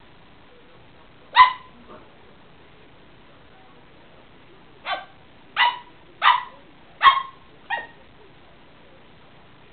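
Small terrier barking: a single bark about a second and a half in, then five sharp barks in quick succession, roughly two-thirds of a second apart.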